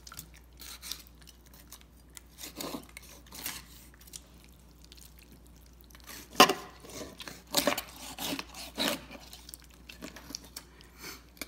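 Chef's knife being forced through a raw chicken's rib bones to split the breast from the back: scattered cracks and crunches of bone, with the blade knocking the cutting board, the loudest crack about six seconds in.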